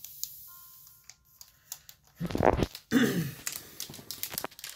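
Two short voice-like calls with bending pitch, about two and three seconds in, followed by a run of quick clicks and taps from the cards and phone being handled on a desk.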